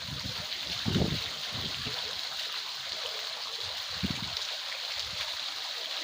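Water running steadily over a small decorative marble fountain, a continuous trickling splash. A low thump comes about a second in and again about four seconds in.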